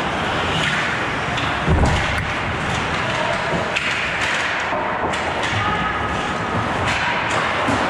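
Ice hockey play around the net: skates scraping and sticks clacking on the ice, with one heavy thump about two seconds in.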